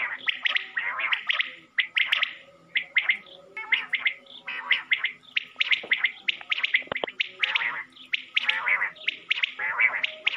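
Common quail calling: rapid clusters of short, sharp chirps, repeated over and over with brief pauses between them.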